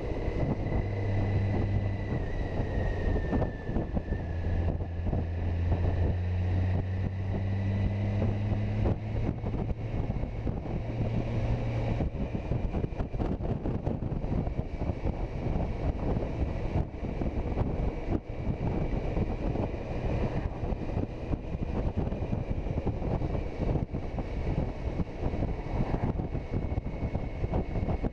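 Motorcycle cruising at road speed: wind rushing over the microphone, with a low steady engine drone for about the first twelve seconds.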